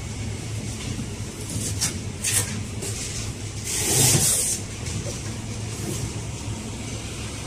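Steady low hum of supermarket chest freezers and store background, with a few short rustling swishes and a louder rush of noise lasting about a second, about four seconds in.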